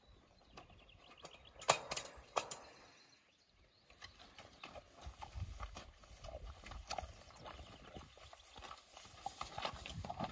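A horse walking through tall grass: faint, irregular hoof steps and small ticks of tack, with a few sharp clicks about two seconds in.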